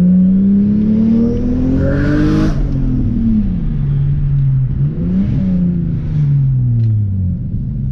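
Turbocharged 2JZ-GTE straight-six with a Blitz Nur-spec exhaust, heard from inside the cabin, pulling under acceleration. Its note rises for a couple of seconds, then drops with a hiss as the throttle closes. About five seconds in the revs briefly rise and fall again, then settle lower.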